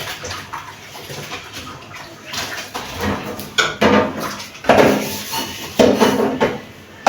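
Removed fridge shelves and drawers clattering and knocking as they are handled and scrubbed at a sink, in irregular bursts that get louder about halfway through.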